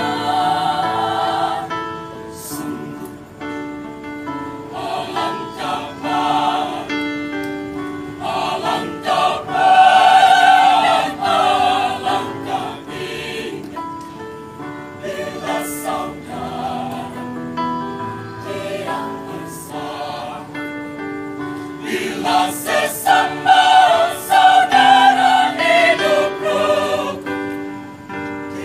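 Mixed choir of women's and men's voices singing together in sustained chords. The sound swells louder about a third of the way in and again in the last third.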